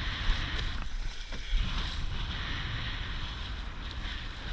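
Laser sailing dinghy driving through choppy water in a 15–20 knot wind: wind rumbling on the microphone over the steady rush and splash of water along the hull and bow spray, with a louder surge about a second and a half in.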